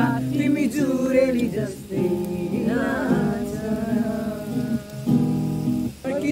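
Acoustic guitar strummed while a man sings; the song breaks off briefly near the end.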